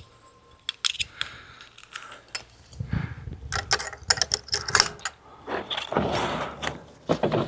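Scattered clicks and light rattles from handling a bolt-action .22 rifle on a bench rest, with a stretch of rustling movement about six seconds in.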